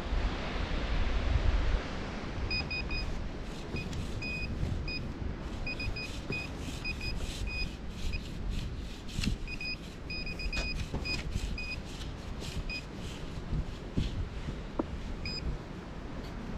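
Nokta Makro Simplex metal detector giving short, high, repeated beeps in clusters, starting a few seconds in: the target tone for a buried metal object, here a coin. Under it, sand is dug and scraped with a hand scoop, with a low rumble throughout.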